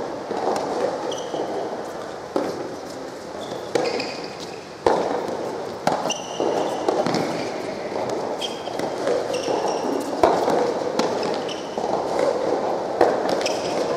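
Soft tennis rally: sharp pops of rackets striking the rubber ball, spaced irregularly a second or more apart, the loudest about five seconds in. Short high sneaker squeaks on the hard court come between the strikes, over steady background noise.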